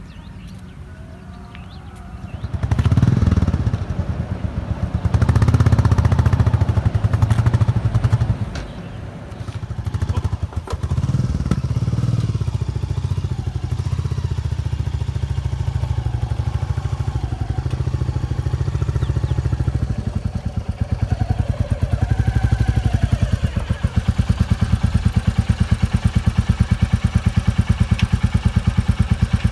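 Royal Enfield Bullet Electra single-cylinder motorcycle engine starting about two and a half seconds in, revved a couple of times, then settling to a steady idle with evenly spaced firing pulses.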